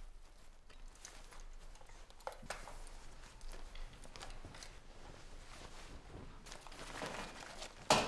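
Rustling of clothing and handled items, with scattered soft clicks and footsteps, a longer rustle about seven seconds in, and a sharp knock at the very end.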